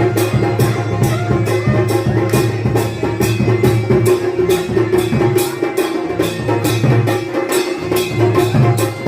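Kumaoni folk band music: a masakbeen (bagpipe) holds a steady drone and plays the tune over dhol and damau drums beating a quick, even rhythm of about three strokes a second.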